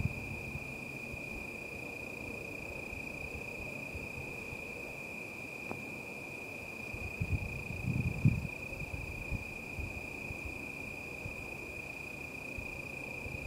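Crickets trilling in one steady high tone. A few low, muffled sounds come about seven to eight seconds in.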